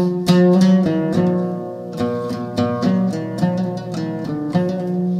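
Instrumental music: a plucked string instrument picks a quick melody of short, sharply attacked notes over a sustained low accompaniment.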